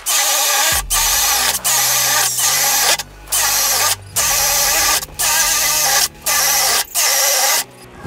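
Bosch GSB 185-LI 18 V cordless drill boring a row of holes in wood with a 5/8-inch spade bit. It runs in about ten short whining bursts of under a second each, with brief pauses between, hole after hole in a battery runtime test.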